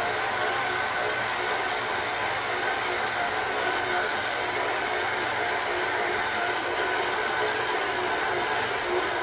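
Electric stand mixer running steadily, its flat beater turning through flour in a stainless steel bowl as the cookie dough is mixed.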